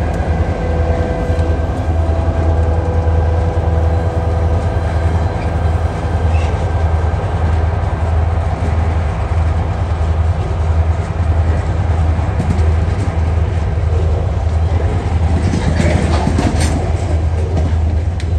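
Coal train passing close by: the diesel locomotives' engines hum as they go past, then the coal hopper wagons roll by with a steady rumble. A few sharp metallic clanks and squeals come near the end.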